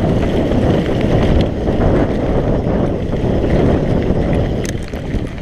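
Wind buffeting the camera microphone over the rumble and rattle of a mountain bike riding fast down a rough trail, with a few sharp knocks from the bike.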